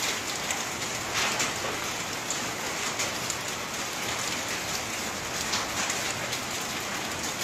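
Rain heavy with volcanic sand and mud falling steadily. It makes a constant patter of small drop hits on the surfaces around.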